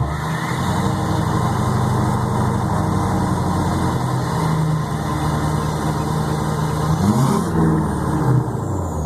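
LBZ Duramax 6.6-litre V8 turbo-diesel idling steadily, with one quick rev about seven seconds in that rises and drops back to idle. Afterwards the turbo's whistle winds down in pitch.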